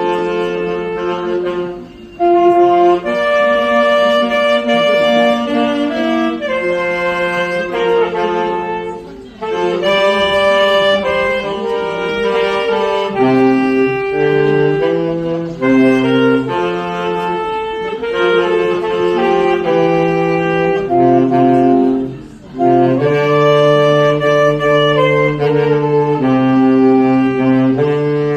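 Instrumental music: a saxophone plays a slow song melody in held notes over chordal accompaniment with a bass line. There are short pauses between phrases about 2, 9 and 22 seconds in.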